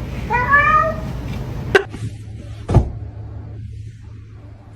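A domestic cat meows once, a short call rising in pitch, followed by a sharp click and then a thump about a second apart.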